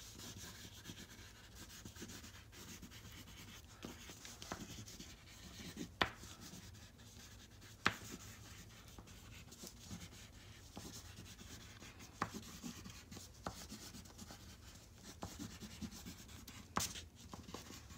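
Oil pastel scribbling across paper in quick handwriting strokes, a faint, dry rubbing and scratching, broken by a few sharp clicks.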